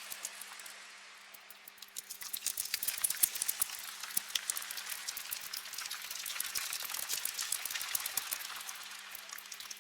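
A swarm of bats squeaking and chirping in a dense, crackling stream of short high-pitched chirps. The chirps thin out briefly about a second in, then thicken again and stay dense.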